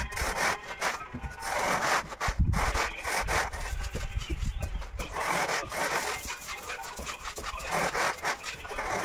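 Hand tool scraping across a wet cement-and-sand floor screed in repeated strokes, each under a second long.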